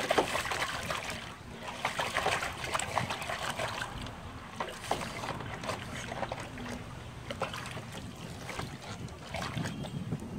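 A pug pawing at the water in a plastic tub, with irregular splashes and sloshes as its front paws dig at floating toys.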